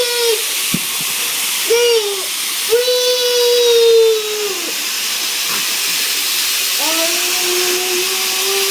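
A young child's voice making long drawn-out wordless 'aaah' sounds, several in a row, the last one slowly rising in pitch, over a constant steady hiss.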